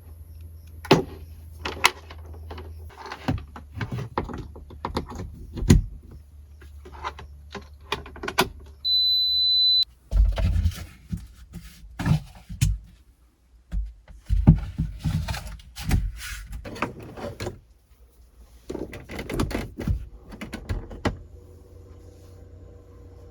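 Irregular knocks, clunks and clatter of things being handled and set down in a small enclosed space, with a single high electronic beep lasting about a second near the middle. A low steady hum is heard under the opening and closing seconds.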